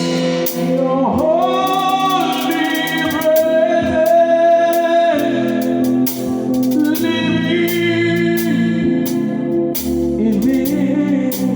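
Live gospel worship music: a voice sings long held notes that slide into pitch, over a band with bass and drums, cymbals ticking through.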